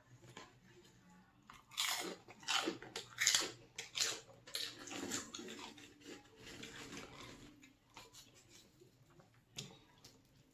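Close-miked crunching and chewing of crispy pork rinds with pizza dip: a run of sharp crunches about two to four seconds in, then softer chewing, with one more crunch near the end.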